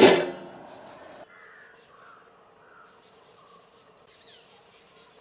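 A large aluminium pot lid clanks down onto the cooking pot at the start and rings briefly. About a second in it cuts to faint outdoor background with scattered bird calls and chirps.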